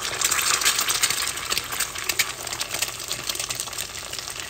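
Eggs frying in hot oil in a stainless steel frying pan: a steady crackling sizzle.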